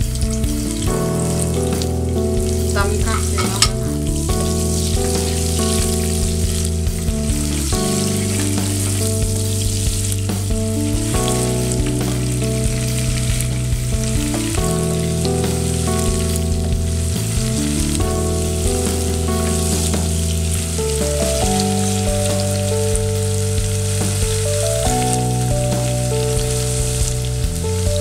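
Sliced onions sizzling as they fry in hot oil in a nonstick pot, stirred now and then with a wooden spatula. Under the sizzle, steady low tones shift in pitch every few seconds.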